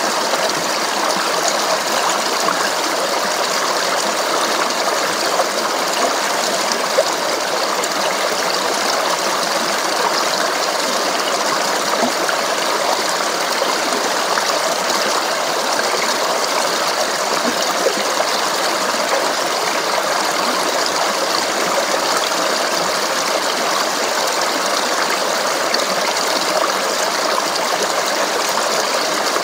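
Stream of flowing water babbling steadily, a continuous, even splashing with no breaks.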